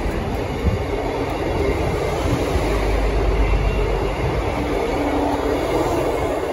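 GWR Intercity Express Train running past the platform: a steady rumble of wheels on rail and underfloor machinery.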